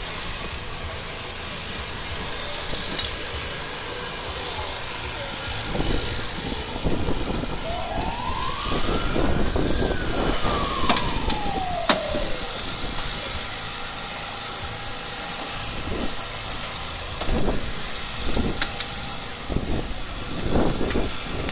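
Hydraulic rescue tool forcing a car's door off its hinges, with a running pump unit underneath and irregular creaking and cracking of bending metal. A single whine rises and then falls in pitch midway through.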